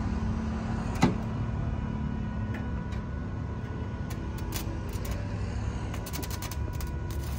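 Arc welding on a truck's exhaust pipe: short, irregular crackles as the arc is struck, thickest near the end, over a steady low mechanical rumble. One sharp click about a second in.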